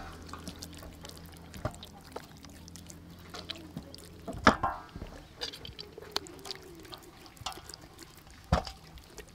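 Hands rubbing marinade into whole raw chickens on a steel tray: scattered wet squelches and slaps of the skin, with sharper slaps about four and a half seconds in and again near the end.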